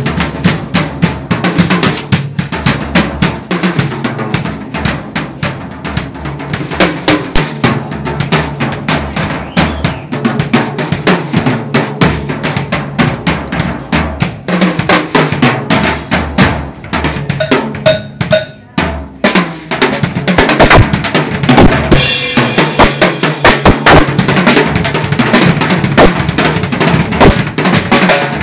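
Drum kit played in a drummer's sound check: rapid strokes and rolls across snare, bass drum and toms. There is a brief lull about two-thirds of the way through, then louder playing with a bright wash of cymbals.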